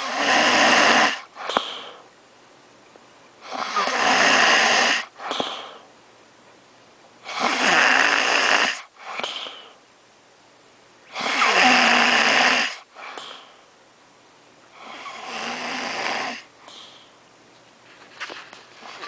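A sleeper snoring loudly, like a pig: five long rasping snores about every four seconds, each followed by a short softer breath. The last snore is weaker.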